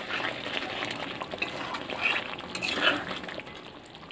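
A spatula stirring a thick, simmering chicken curry in a metal wok: wet stirring and bubbling, with louder strokes about two and three seconds in, fading near the end.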